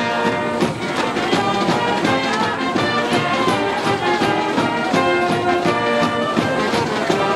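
School brass band playing a cheering tune: trumpets, trombones and saxophones holding melody notes over a steady beat.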